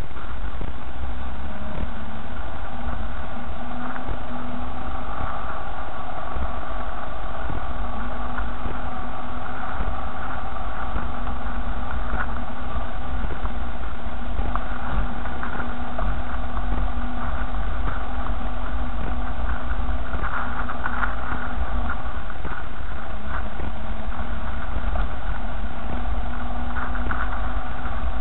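Car driving along a rough, rutted dirt track, heard from inside the cabin: a steady engine hum and low road rumble with scattered small knocks and rattles from the bumpy ground.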